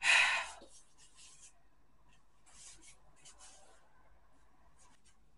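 Soft rustling of clothing fabric and hands rubbing against it: one short louder rustle at the start, then faint scattered rustles.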